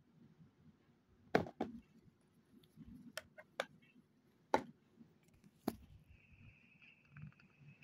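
Handling noise: a few sharp clicks and taps as a cardboard adapter box, a plastic power adapter and its cable are picked up and set down. A faint steady high-pitched whine comes in about six seconds in.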